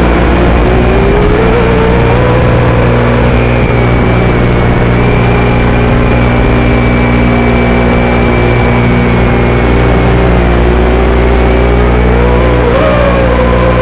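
Loud, steady buzzing hum with a whine that slowly wavers up and down in pitch, heard in the audio of a 5.8 GHz FPV video link. The noise comes from the video transmitter sending mono audio to a FatShark receiver module that expects stereo.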